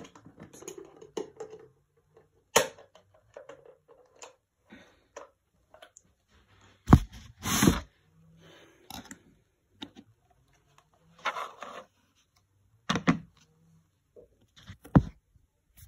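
Handling noise close to a phone's microphone: scattered knocks, clicks and scrapes. The loudest is a thump about seven seconds in, followed by a brief scrape.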